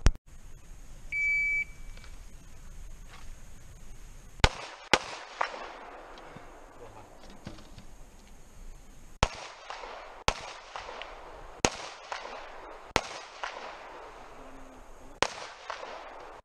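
An electronic shot timer's start beep about a second in. Then a handgun firing: a quick string of two or three shots about four seconds in, followed by single shots a second or more apart, about eight shots in all, each with a short echo.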